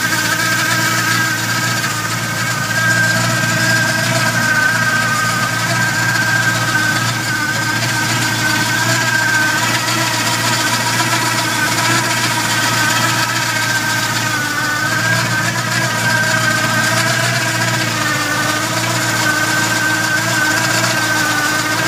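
Chevrolet small-block V8 with a thumper cam and dual exhaust, idling steadily.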